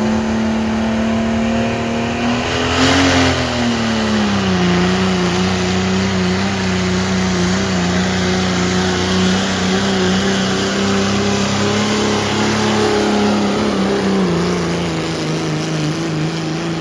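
A diesel pickup engine in the 2.6 Pro Street class runs near full throttle under steady load. It holds a high, steady pitch that rises briefly a few seconds in, then sags to a slightly lower note and holds. The pitch drops a little further near the end.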